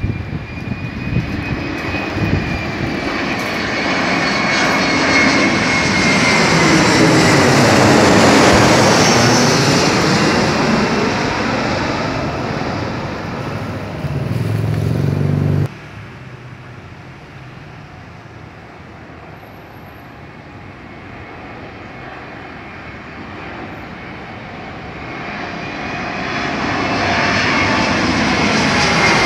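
Twin-engine jet airliner on landing approach passing low overhead: engine rush and a high whine that falls in pitch as it passes, loudest about eight seconds in, then cut off abruptly about halfway through. Near the end a second airliner's engines grow steadily louder as it approaches.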